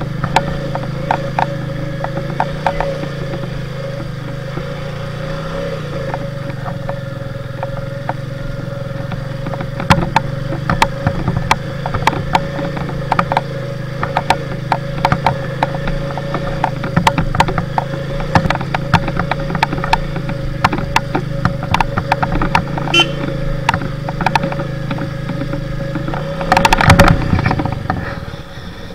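Motorcycle engine running steadily as the bike climbs a steep, rutted dirt track, with frequent sharp knocks and rattles as it jolts over stones and ruts. Near the end comes a louder, harsher burst of rattling, after which the engine noise drops away.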